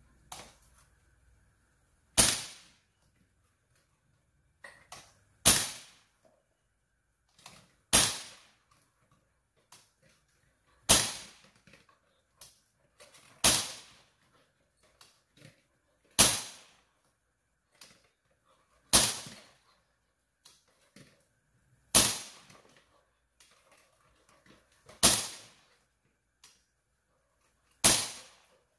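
Daisy CO2 BB pistol fired ten times, one sharp crack every two and a half to three seconds, each with a short ringing tail. Fainter clicks come between the shots.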